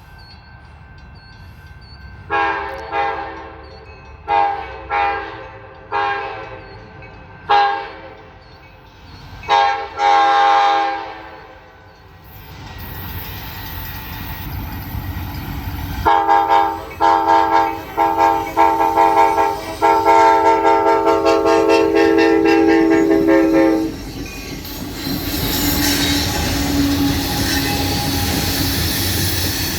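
Diesel locomotive air horn on a rebuilt SD70 leading a grain train, played as a horn show. First come a series of short toots and a longer blast, then a rumble builds as the train approaches. Next comes a quick string of short toots and a long blast of about four seconds, after which the locomotive and cars rumble past.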